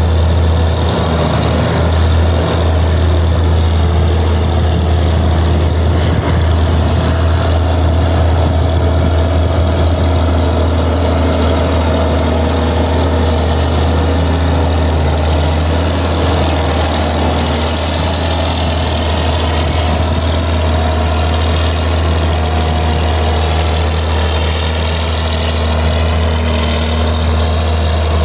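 Case IH combine's diesel engine running steadily as the machine drives past, a deep, even engine note with no change in pace.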